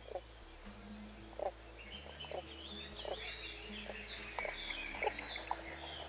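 Soft background music with a low drone that steps between notes. Over it, birds chirp and warble high up, and about nine short, low calls sound at uneven intervals.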